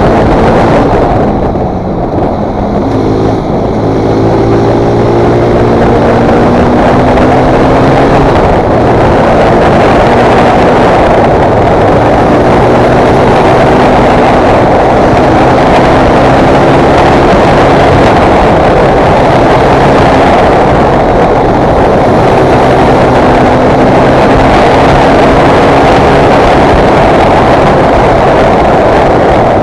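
Fantic Performance 125 motard's four-stroke single-cylinder engine under way, its pitch climbing and dropping back again and again as it revs and shifts, with a brief lift off the throttle about two seconds in.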